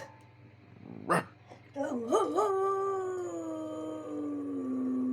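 Pet dog howling: one short call about a second in, then one long howl that wavers at first and slowly falls in pitch, held for about four seconds. The howling is the dog's demand to be let outside.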